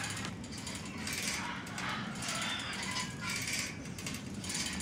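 Bicycle freewheel ratchet on a chain-driven axle ticking softly in short runs, about once a second, as the lever chain rocks the sprocket up and down, over a low steady hum.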